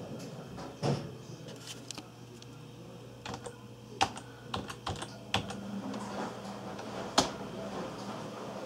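Typing on an HP desktop computer keyboard: a run of irregular key clicks, with the sharpest one near the end, over a low steady hum.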